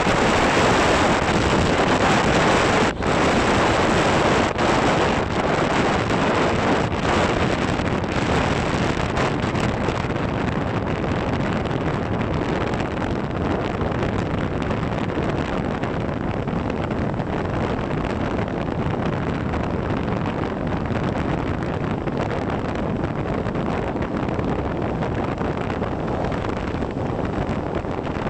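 Sea waves washing onto a beach, with strong wind buffeting the microphone; a steady rushing noise, a little louder in the first ten seconds.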